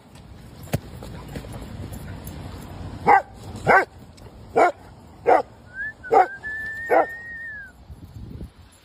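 A dog barking playfully in short, sharp barks, six of them about a second apart starting about three seconds in. A thin, high held tone runs over the last few barks and falls away at the end.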